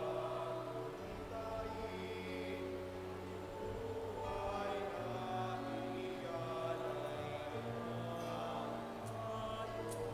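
Offertory hymn: slow sacred choral singing in long held chords that change every second or two. A few light clicks come near the end.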